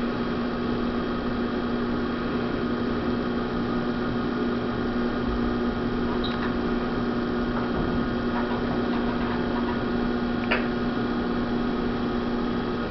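Electric pottery wheel's motor humming steadily as the wheel head spins.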